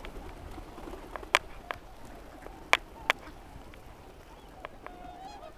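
A flock of ducks and swans at the water's edge: a few sharp claps about one and a half and three seconds in, and faint calls from the waterfowl near the end.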